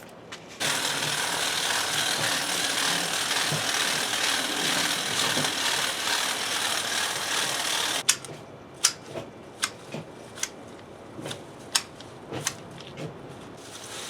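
Power hedge trimmer cutting ivy, running steadily for about seven seconds and then stopping abruptly, followed by a string of sharp clicks about one a second.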